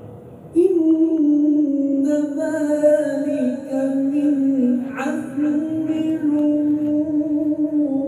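A man's Quran-recitation voice holding one long, slowly wavering melodic note in maqam Saba, starting abruptly about half a second in.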